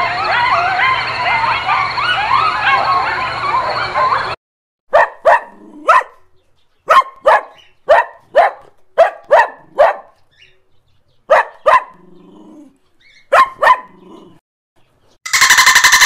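A pack of coyotes yipping and howling over one another, cutting off about four seconds in. Then a dog barks about fourteen times, in short single and double barks with pauses between. Near the end a loud, rapid buzzing click train of a dolphin begins.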